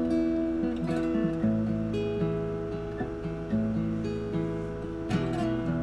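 Acoustic guitar in drop D tuning with a partial capo on the second fret, strummed chords left ringing. A fresh strum comes every second or so, and the chord changes several times.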